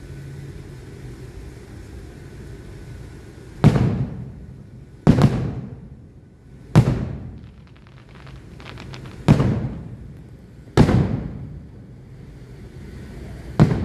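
Aerial firework shells bursting: six loud booms a second or two apart, each trailing off over about a second, with faint crackling between some of them.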